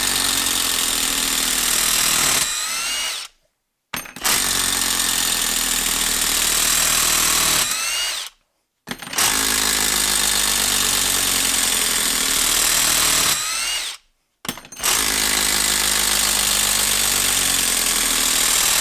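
Kobalt 24-volt brushless quarter-inch hex impact driver hammering four screws out of wood in reverse, one after another. Each run lasts about four to five seconds, with a brief pause between screws and a change in pitch as each one lets go.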